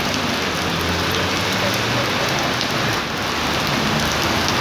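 Heavy rain falling on wet stone paving, a steady hiss of rain.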